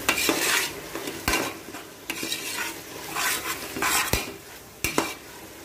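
Metal spoon stirring onions, tomatoes and green chillies sautéing in oil in an aluminium pressure cooker: a steady sizzle with repeated scraping strokes, and the spoon knocking sharply on the pot three times.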